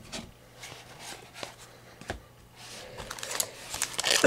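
Trading cards being handled, with scattered light taps and slides of card stock, then the crinkle of a foil card-pack wrapper growing louder over the last second or so.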